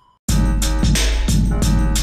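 Background music: a brief silence, then a new track starts about a quarter second in with a steady beat and deep bass.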